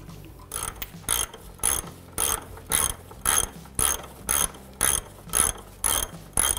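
Hand ratchet clicking in a steady rhythm of short strokes, about two a second, as it spins off a nut that has already been broken loose.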